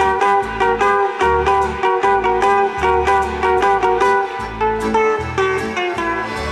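Live band music: a guitar picks a fast run of plucked notes over a steady bass line.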